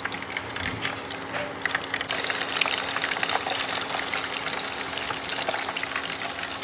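Marinated chicken pieces deep-frying in refined oil in a pan on an induction cooktop: a dense, steady sizzle packed with small pops and crackles, with a thin steady hum underneath.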